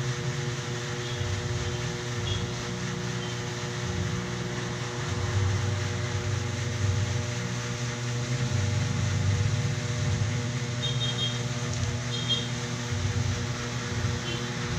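A steady low machine hum with a few faint, short high chirps.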